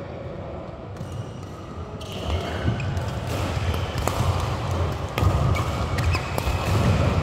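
Badminton rally: a handful of sharp racket hits on the shuttlecock, roughly a second apart, with players' feet thudding on the court floor. It starts about two seconds in.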